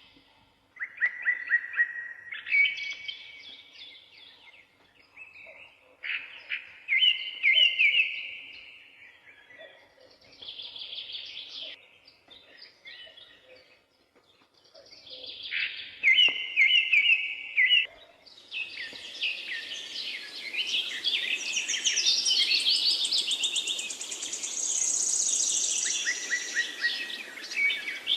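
Songbirds singing, short repeated trilling phrases with pauses between them. About two-thirds of the way in, several birds overlap in a denser, higher chorus over a steady background hiss.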